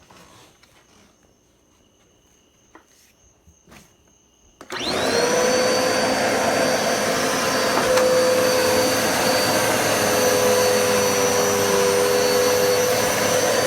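A Dirt Devil Multi-Surface+ upright bagless vacuum cleaner switched on nearly five seconds in, its motor spinning up with a quick rising whine and then running steadily with a high, even whine. A few faint clicks come before it starts.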